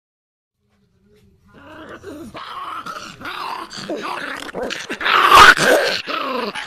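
Bull terrier puppy growling, starting about a second and a half in, in a run of rising and falling growls that is loudest about five seconds in.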